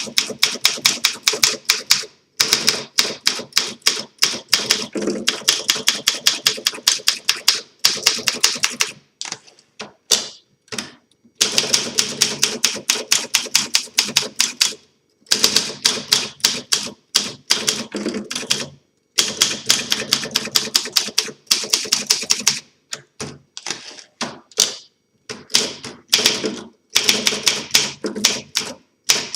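A freshly restored 1951 Olympia SM2 manual portable typewriter being typed on: rapid keystrokes clatter in runs of a few seconds, broken by short pauses.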